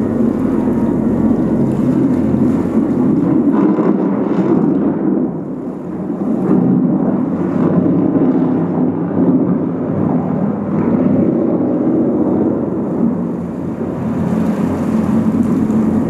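Churning water of a motor-driven whirlpool in a round floor basin: a continuous low rushing rumble that swells and dips a few times.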